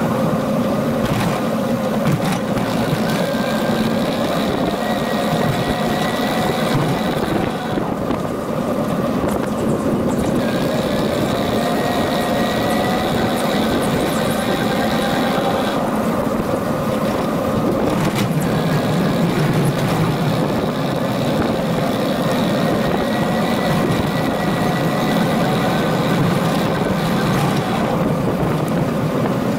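Steady noise of a bicycle being ridden along a paved path: tyres on the pavement and wind on the handlebar-mounted microphone.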